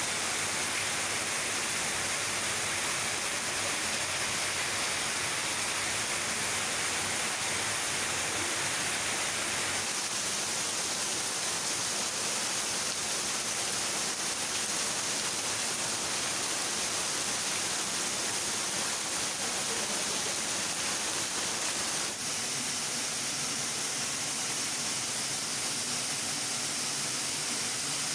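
Steady rush of water falling and flowing in a rocky creek, an even hiss whose tone shifts slightly about ten seconds in and again about twenty-two seconds in.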